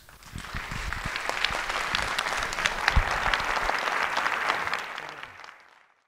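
Audience applauding, a dense patter of many hands that swells about half a second in, holds steady, then fades away near the end.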